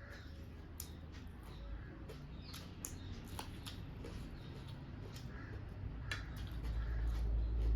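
Close-up eating sounds: scattered small clicks and smacks of chewing, with a low rumble rising near the end.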